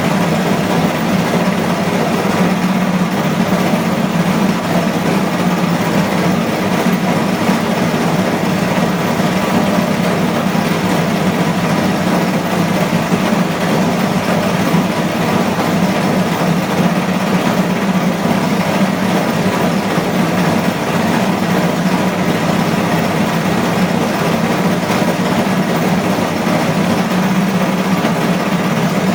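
Washing machine on its spin cycle, running with a steady, unchanging low drone and an even rushing noise above it.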